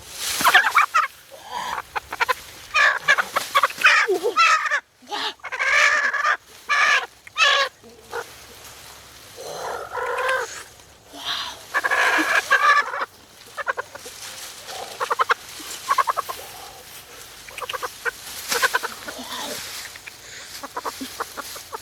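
Chicken clucking repeatedly in loud runs of calls, heaviest in the first third, again around the middle, then lighter toward the end.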